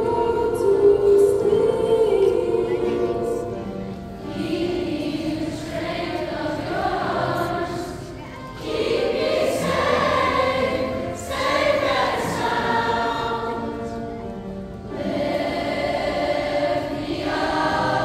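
Large youth choir singing together in phrases a few seconds long, with short breaks between phrases.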